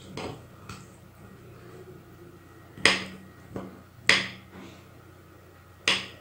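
Metal utensil stabbing raw chicken pieces and striking the ceramic plate beneath: three sharp clinks, with a few softer taps in between, as the chicken is pierced to take a marinade.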